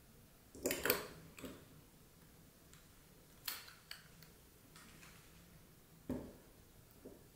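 Small clicks and taps of a refillable Creed perfume atomizer's metal parts being fitted together, a handful of separate clicks with the loudest cluster about a second in. Near the end the atomizer case is set down on a wooden table with a heavier knock.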